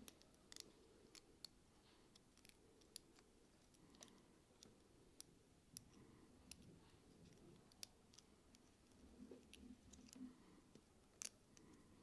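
Faint small clicks and scrapes of 3D-printed plastic model parts being handled and pushed together, an X-shaped frame fitted into a ring section. The clicks are irregular and scattered, with the sharpest one near the end.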